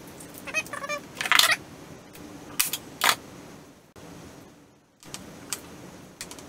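Handling noises on a workbench: small plastic hand brushes and a strip of material being picked up, pulled and set down, giving rustles and a few sharp clacks. The loudest clack comes about a second and a half in.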